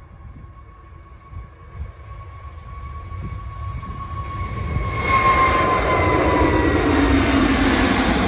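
Twin jet engines of an SAS Airbus A320-family airliner at takeoff power as it rolls, lifts off and climbs past, growing much louder about five seconds in. The engine whine slides down in pitch as the plane goes by.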